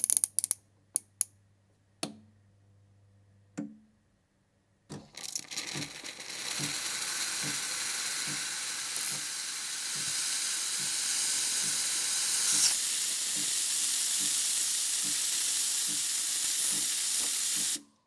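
A few clacks of the espresso machine's steam dial and a faint hum, then about five seconds in the machine starts venting steam in a loud, steady hiss with a faint low pulsing about twice a second, which stops suddenly near the end. The thermal block is too hot for coffee, so the machine releases steam to cool the system automatically.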